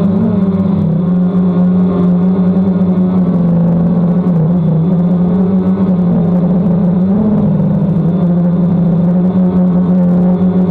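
DJI Phantom quadcopter's motors and propellers humming steadily in flight, the pitch wavering briefly a few times as the motor speeds change.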